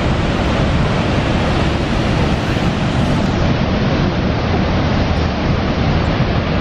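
Niagara Falls' Horseshoe Falls pouring over the brink close by: a loud, steady rush of falling water with a deep rumble underneath.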